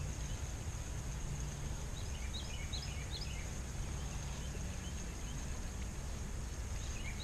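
Quiet outdoor ambience: a steady low rumble and a steady high-pitched drone, with a bird giving a quick series of short chirps about two to three seconds in.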